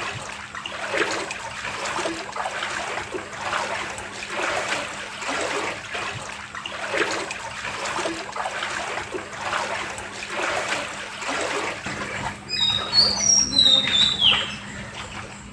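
Several people wading through knee-deep floodwater, the water sloshing and swishing with each step at about one step a second. Near the end a bird chirps loudly several times in short falling calls.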